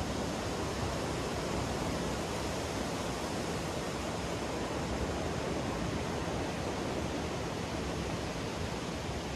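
Ocean surf breaking on a sandy beach: a steady, even wash of waves with no single break standing out.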